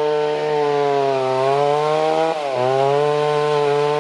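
A two-stroke chainsaw running hard, cutting trees in the forest. Its engine note wavers, then dips and picks back up about two and a half seconds in.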